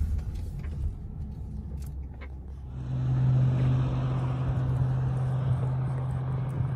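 Car engine and road noise: a low rumble heard from inside a moving car, then, about three seconds in, a louder steady engine hum with a rushing hiss.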